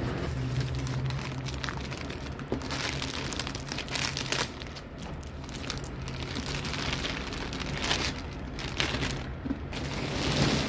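Clear plastic wrapping crinkling and rustling as it is untied and pulled off a cardboard pastry box, in irregular handfuls.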